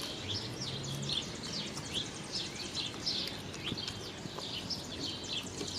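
Birds chirping over steady outdoor background noise, with many short, quick calls one after another.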